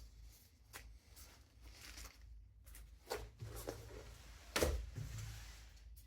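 Faint handling noises from leatherwork: a few short taps and scrapes over a low hum, the loudest about four and a half seconds in.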